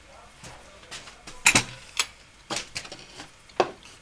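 Metal pipe clamps being fitted and adjusted on a glued-up wooden chair frame: about five sharp metallic clicks and clacks, the loudest a double clack about one and a half seconds in.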